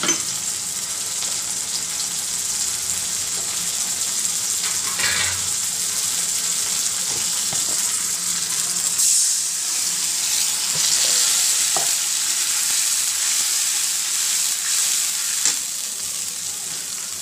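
Sliced onions frying in hot oil in a wok with ginger and garlic paste just added, sizzling steadily, with a few brief knocks.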